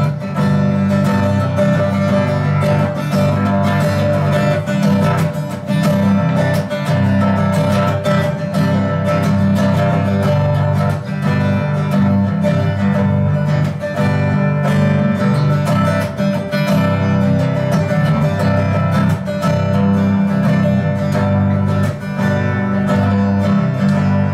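Instrumental break in a slow blues ballad, led by guitar: acoustic guitar played steadily, plucked and strummed, with a full, even accompaniment.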